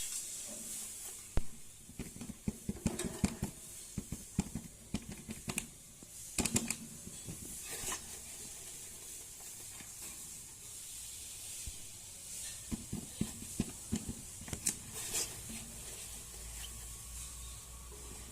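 Baby cockatiel making raspy hissing sounds, with scattered short clicks and taps.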